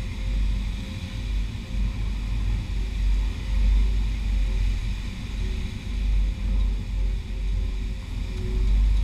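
Wind buffeting the microphone: an uneven low rumble that swells and fades every second or so, over a steady hiss of beach background.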